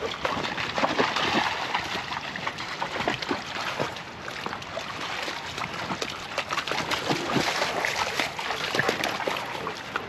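River water splashing and gurgling over rocks, an uneven rush dotted with many small sharp splashes and clicks.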